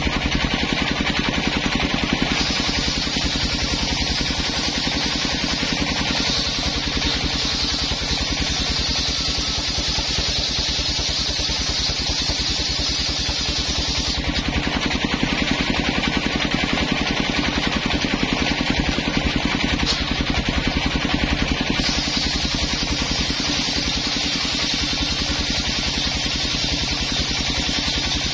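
Homemade engine-driven circular saw bench running steadily while its large blade rips coconut-wood planks, the engine's even beat under a hissing whine from the cut. The cutting noise eases for several seconds midway, then returns.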